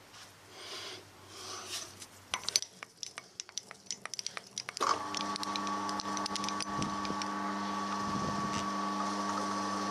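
A machine spindle motor switches on about five seconds in and runs at a steady hum. Before that come a few seconds of scattered clicks and rattles.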